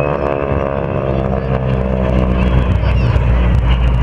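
Engines of two aircraft flying past together in formation: a steady engine drone whose pitch sinks slightly as they go by.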